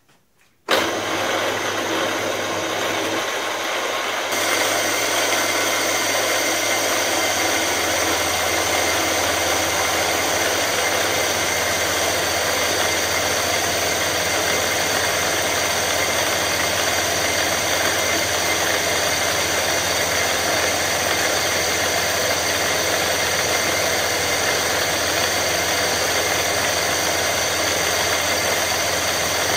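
Milling machine spindle switches on about a second in and runs steadily with a whine of fixed tones, while a ball end mill cuts aluminium; the sound fills out a few seconds later.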